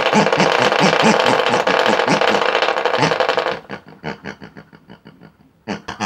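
Small DC motor of a homemade 'free energy' gadget running with a loud steady buzzing rattle, cutting off about three and a half seconds in and ticking about five times a second as it winds down to a stop. A short squeal starts just before the end.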